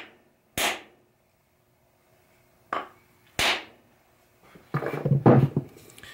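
Three sharp knocks: one about half a second in, then two close together near three seconds. They come from pounding a ball peen hammer's new hickory handle to drive and seat the head on it. A second of scuffing and knocking follows near the end as the hammer is lifted and handled.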